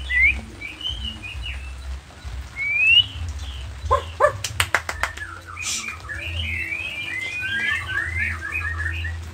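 Nias white-rumped shama (murai batu) singing: scattered chirps and rising whistles, a quick run of sharp clicks about four seconds in, then a dense string of varied twittering phrases in the second half.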